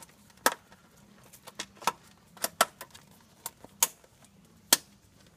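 Snap fasteners on a café racer seat pad clicking into place as the pad is pressed onto the seat base: a run of about eight sharp, irregular clicks, one of the loudest near the end.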